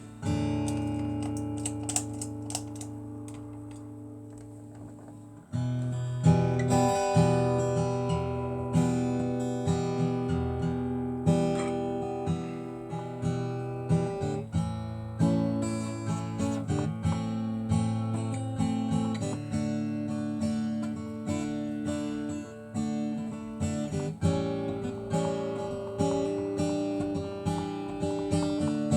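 Acoustic guitar playing without singing. A chord rings out and fades over the first five seconds, then strummed chords start up in a steady rhythm.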